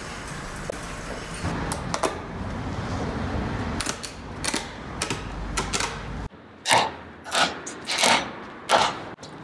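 Tufted rug's backing cloth being pulled off the tufting frame's tack strips: four loud, short tearing sounds in about two seconds, starting near the end. Before them, a steady low background with a few faint clicks.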